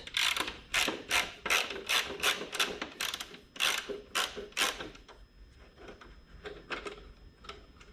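Hand tool turning out a T35 Torx fastener on a motorcycle console, making a run of sharp clicks about three a second that grow fainter after about five seconds.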